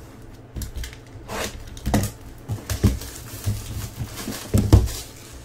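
A sealed cardboard trading-card box being handled and opened by hand: rustling of the box and its wrapping, with several sharp knocks, two close together near the end.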